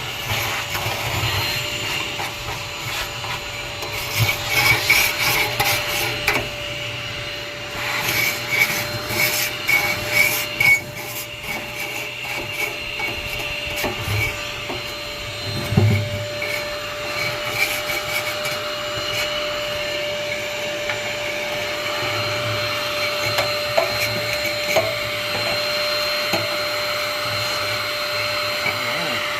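Portable 800 W ash vacuum running steadily with a constant motor whine while it sucks ash out of a smoker. Bursts of rattling and scraping come about 4 to 6 seconds and 8 to 11 seconds in, and there is one thump about 16 seconds in.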